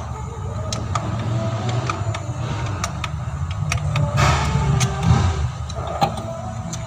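Scattered metal clicks and clinks from a hand-turned L-handle socket wrench tightening valve cover bolts, over a steady low rumble.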